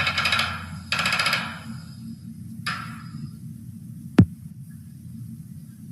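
Recorded cat meows played as an MP3 sound effect by a DFPlayer Mini module through a small speaker: two meows, then a shorter third, over a steady electrical hum. A single sharp click comes about four seconds in.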